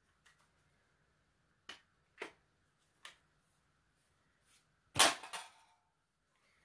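Sharp clicks from a loaded Magpul PMAG Gen 3 polymer magazine and its dust cover being handled, four spread over about three seconds. About five seconds in comes a louder clatter of several quick knocks.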